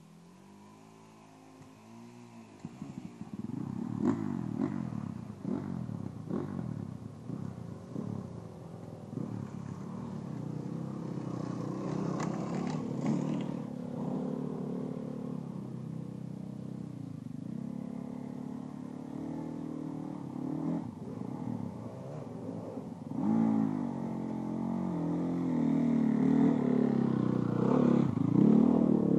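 Enduro dirt bike engines revving hard under load on a steep, rocky climb, the pitch rising and falling over and over as the throttle is worked. Faint at first, the sound picks up about two seconds in and grows louder near the end.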